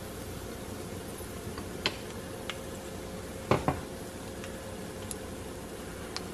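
Garlic frying gently in hot oil in an enamelled cast-iron pot: a faint steady sizzle, with a few light clicks, the loudest pair about three and a half seconds in.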